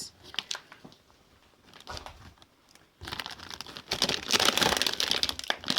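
Plastic packaging crinkling and rustling as frozen food packs are handled, starting about halfway through after a quieter stretch with a few light clicks.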